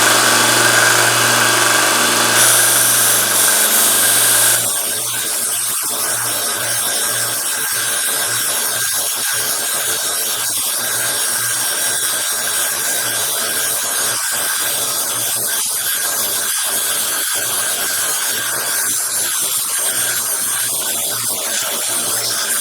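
A 1-inch belt sander's motor and belt running with a steady hum. About four and a half seconds in the sound drops a little and turns rough and scratchy as steel pliers are ground against the belt, thinning the jaws and taking off pitting.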